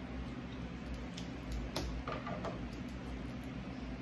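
Sparse small clicks and crackles of boiled crab and shrimp shells being picked apart and eaten by hand, over a steady low hum.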